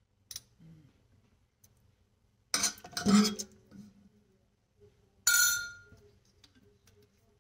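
Metal spoon and glass vanilla bottle clinking against the stainless steel pot and counter: a quick cluster of sharp clinks about two and a half to three and a half seconds in, and one more clink a little past five seconds that rings briefly.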